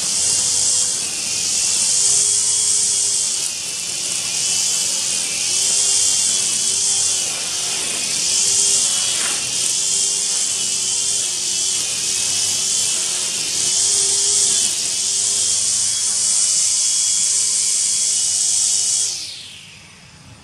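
Motorized grass trimmer running at high speed through tall grass, a high whine over a hiss, its pitch repeatedly dipping and recovering as the cutting head loads up in the grass. About a second before the end it is switched off and winds down with a falling whine.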